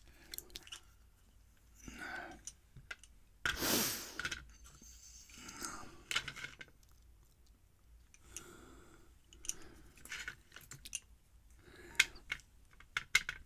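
Small metallic clicks, scrapes and rattles of a pin-tumbler challenge lock being taken apart by hand, its core coming out and its pins and springs coming loose. There is one louder rustling scrape about three and a half seconds in.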